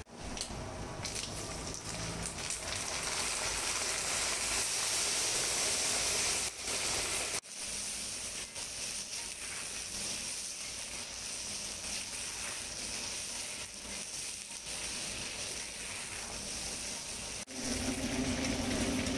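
Green chillies sizzling in hot oil in a wok over a high flame: a steady frying hiss that drops out briefly twice.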